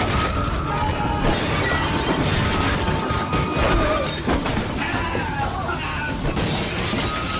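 Film soundtrack: dramatic music under a run of crashing, shattering sound effects.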